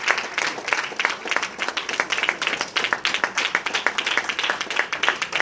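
Congregation applauding, a dense run of many hand claps.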